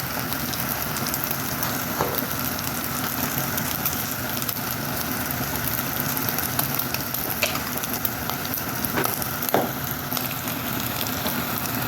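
Beef frying in a pan, a steady sizzle, with a few sharp clicks scattered through it.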